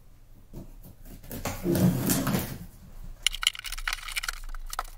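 A short low vocal sound about two seconds in, then a quick run of scratchy clicks and scrapes from about three seconds on as a knife blade slices through the packing tape along the edge of a cardboard box.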